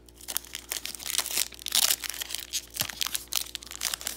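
Foil wrapper of a Pokémon card booster pack crinkling and tearing as it is pulled open by hand: a dense run of crackles.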